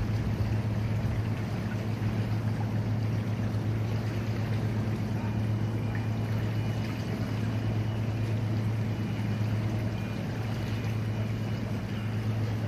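Steady low engine hum under a constant rushing noise.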